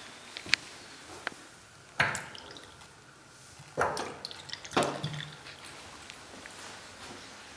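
Water from a chrome tap splashing into a stainless steel sink in three short bursts, the first about two seconds in, with a few small clicks before it.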